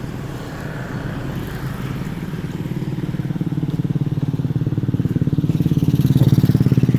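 Excavator engine running with a fast, even pulsing rumble that grows steadily louder.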